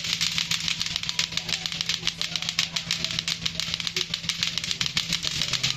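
Several lato-lato clacker toys swung at once: plastic balls striking together in rapid, overlapping clacks, over a steady low hum.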